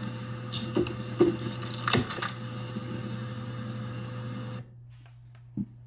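Clear plastic bag holding a braided supply hose and metal fittings being handled and set on a wood floor: crinkling plastic with light clinks and knocks, loudest about two seconds in. Near the end it goes quieter, with one short tap.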